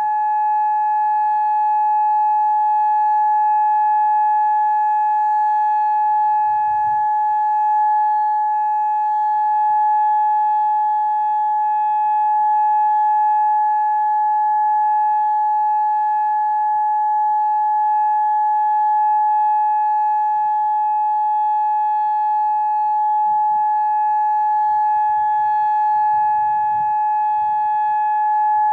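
Federal Signal Modulator outdoor warning siren sounding a steady single tone during its monthly test, the pitch held level with no rise or fall.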